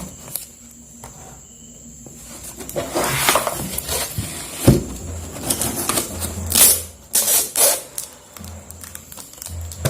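Cardboard carton being opened by hand, with irregular rustling and scraping handling noises and a sharp knock about halfway through, after a quiet start.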